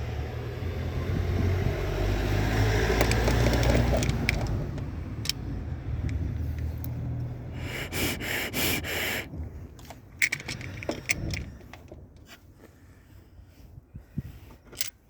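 Skoda/VW 1.5 TSI petrol engine idling poorly, a sign of a cylinder misfire that the owner traces to a faulty PCV valve. The engine hum fades out about eight seconds in. After that comes a loud hiss for about a second, then scattered clicks and scrapes.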